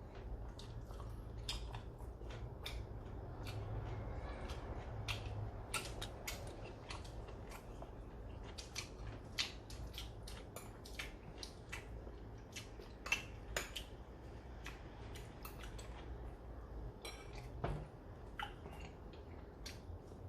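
Eating utensils clicking and tapping against plates and bowls in frequent, irregular sharp clicks during a meal of grilled beef ribs and side dishes, over a low steady hum.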